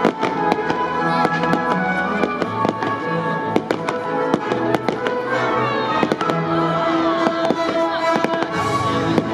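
Fireworks display: many sharp bangs and crackles from bursting shells, over music with held notes and a moving bass line.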